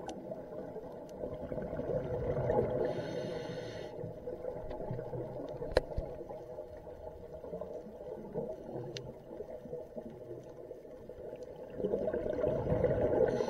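Underwater sound of a scuba diver breathing through a regulator: the bubbling rumble of exhaled air swells about two seconds in and again near the end, with a hiss over each swell. A single sharp click comes near the middle.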